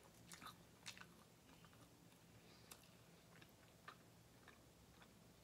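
Faint chewing of soft bread soaked in molokhia soup, with a scatter of short wet mouth clicks, the sharpest within the first second.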